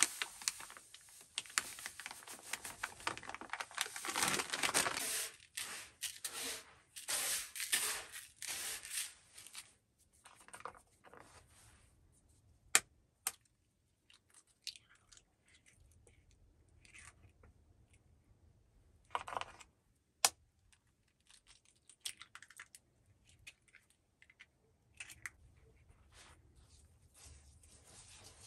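Sugar poured from a crinkling plastic bag into a plastic bowl, a rustling hiss for about the first ten seconds. Then eggs are cracked on the bowl's rim, a few sharp single clicks with quiet between.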